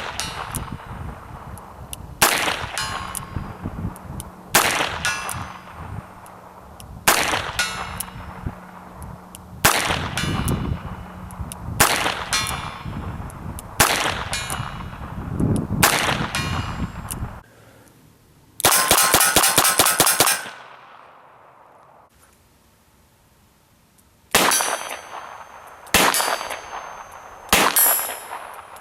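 Smith & Wesson Model 317 .22 LR revolver firing double action at steel targets: eight shots about two and a half seconds apart, each followed by the clang and ring of the steel plate being hit. Then a quick rattle of metallic clicks, a short quiet spell, and several more shots with ringing hits near the end.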